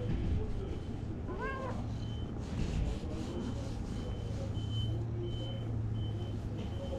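A cat gives one short meow that rises and falls in pitch, about a second and a half in. A steady low hum runs underneath, and a faint high beep repeats at a steady pace from about two seconds in.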